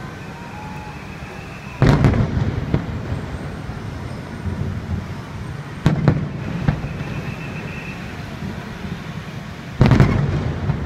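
Aerial firework shells bursting: three loud booms about four seconds apart, each trailing off in a rolling echo with a smaller crack after it, over a steady low rumble.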